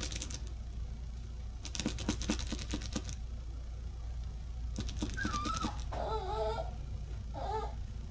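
Two bursts of quick clicking, then three short warbling squeaks that waver in pitch, made to catch a puppy's attention.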